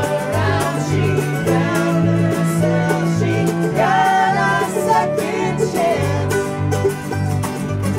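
An acoustic string band playing live: a fiddle bowing a melody over plucked strings and a moving bass line.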